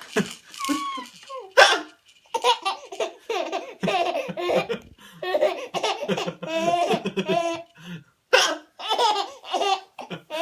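Young child laughing in repeated bouts of giggles, set off by an adult's fake hiccups: short sharp gulping sounds, loudest about a second and a half in and again about eight seconds in.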